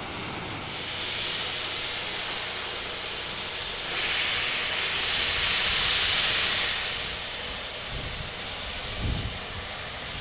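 Steam hissing steadily from a 1923 ALCO H-23 class 4-6-2 Pacific steam locomotive under steam. The hiss swells louder from about four seconds in until about seven seconds. A couple of low thumps come near the end.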